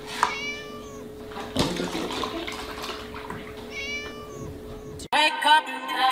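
A kitten meows twice, a few seconds apart. Between the meows comes the splashing noise of milk being poured from a carton into a plastic tub. About five seconds in, it cuts to music.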